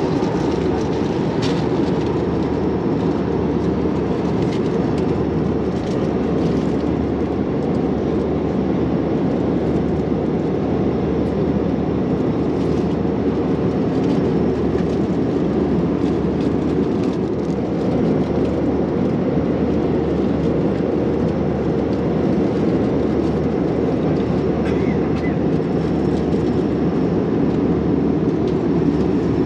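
Steady airliner cabin noise from an Airbus A320 in cruise: an even, low rushing roar of airflow and engines that holds constant, with a few faint clicks.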